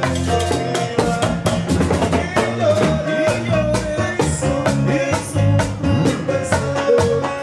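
A live band playing Latin music, with a steady, busy drum beat under held melody notes.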